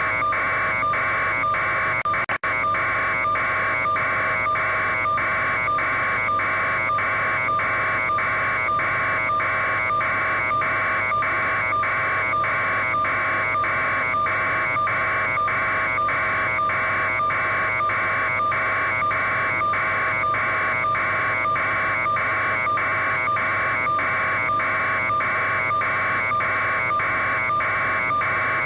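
News helicopter's engine and rotor noise picked up on board: a steady whine and hum, with a buzzing noise that beats evenly about twice a second.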